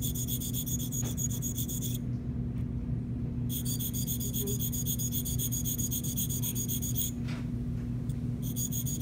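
Flat sharpening stone moved rapidly against the cutting edge of a Gracey 13-14 curette held still, a fast rhythmic high-pitched rasp of stone on steel: the sound of the edge being ground sharp. It stops twice, about two seconds in and about seven seconds in, each time for a second or so, as the stone moves from heel to middle to toe. A steady low hum runs underneath.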